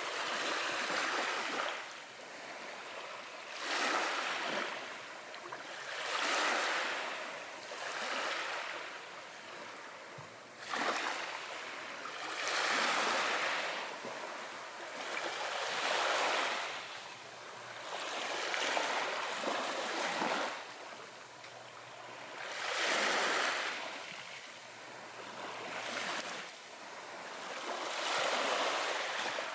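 Ocean waves washing in one after another, a rushing hiss that swells and fades every two to four seconds.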